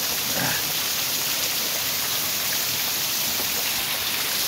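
Heavy rain pouring steadily onto wet grass and bare, puddled ground: a dense, even hiss.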